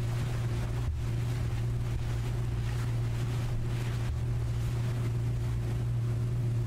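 Steady low hum with an even rushing noise over it: the ambient drone of the found-footage film's soundtrack.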